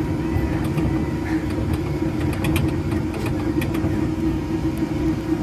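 Tractor ride vehicle's motor running steadily as it drives along its track, an even low hum with scattered light clicks and rattles.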